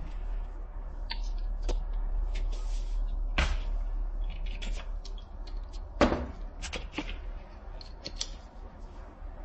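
Clicks and knocks of 3D-printed plastic rifle parts being handled and fitted together, with two louder knocks about three and a half and six seconds in, over a steady low hum.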